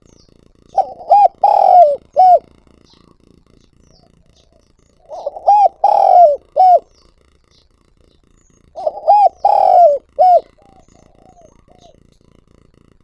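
A spotted dove (chim cu gáy) giving its calling coo, three phrases about four seconds apart, each of four notes with a longer third note. It is a decoy male's calling song, the kind used to lure wild doves.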